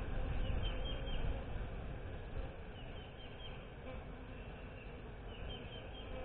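A honeybee colony humming steadily in an open hive box crowded with bees, with a few faint high chirps over it.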